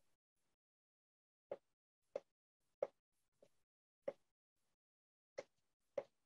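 X-Acto knife blade chopping through a thin roll of polymer clay onto a cutting mat: about seven soft taps, roughly one every two-thirds of a second, with a short pause about four seconds in. Between the taps it is near silent.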